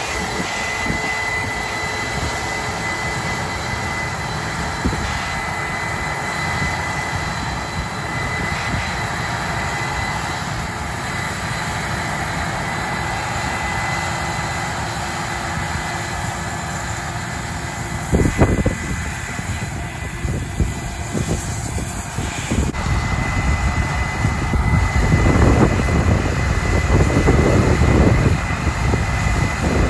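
Case IH 8250 Axial-Flow combine running steadily while harvesting corn and unloading grain, a constant diesel drone with a steady high whine over it. A thump sounds about two-thirds of the way through, and the low rumble grows louder near the end.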